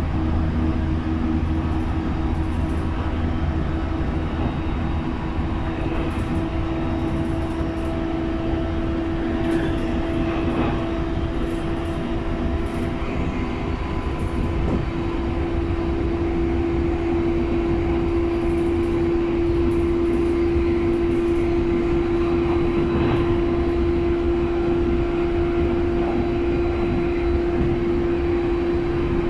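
Cabin running noise of a JR East E531-series electric commuter train cruising at speed: a steady rumble of wheels on rail with a steady pitched hum over it that grows a little stronger about halfway through.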